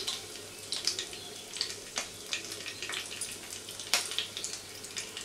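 Whole cumin seeds and a dry red chilli sizzling in hot oil in a kadai, with irregular crackles and pops: the tempering (phoron) frying.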